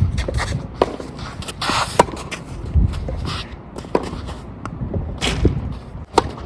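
Tennis rally: sharp racket-on-ball hits and ball bounces, a second or two apart, with strong wind buffeting the microphone.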